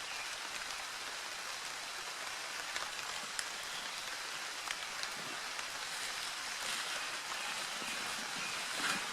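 Steady rain falling: a constant hiss with scattered sharp drop ticks.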